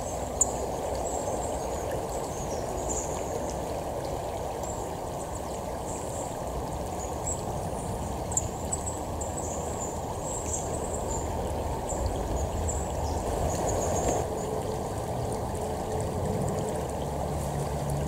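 Shallow creek flowing and rippling over rocks, a steady rush of running water, with faint high-pitched chirps over it.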